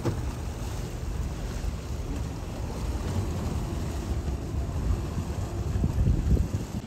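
Wind buffeting the microphone: a gusty low rumble that swells and falls, strongest near the end.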